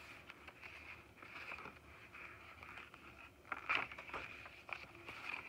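Paper pages of a handmade junk journal being turned and handled by hand: soft rustling with small clicks, and one louder rustle about two-thirds through.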